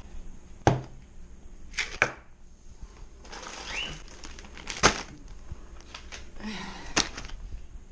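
Plastic-wrapped food packages and plastic tubs being handled and set down on a table: packaging crinkling in short stretches, with about four sharp knocks as items are put down.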